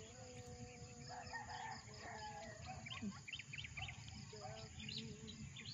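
A rooster crowing faintly, one long drawn-out call through the first couple of seconds. Small birds give a quick run of high chirps about halfway through.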